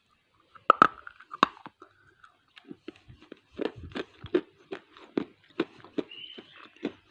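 A person biting into a hard piece of SS Gold edible clay: two sharp cracks about a second in, then chewing with steady crunches, about three a second.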